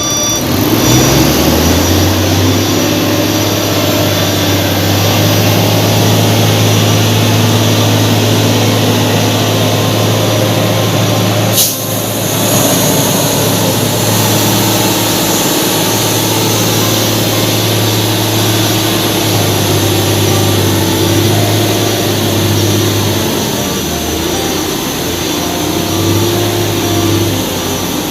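Heavy truck diesel engine running steadily at raised speed, its note climbing in the first couple of seconds and then holding. A single sharp click sounds about halfway through.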